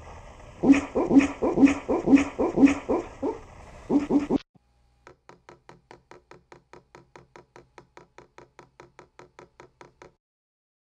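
A Weimaraner barks in a quick run of short barks, about three a second, for some three and a half seconds, then stops. After a short pause, faint, steady, even clapping at about five claps a second runs for about five seconds.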